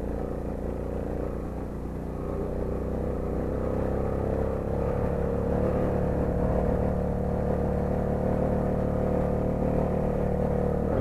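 Small gasoline engine of a motorized bicycle running while riding, its pitch climbing a little over the first few seconds and then holding steady.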